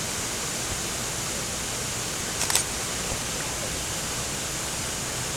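Steady rush of a waterfall pouring into a swimming hole, with a quick cluster of sharp clicks about halfway through.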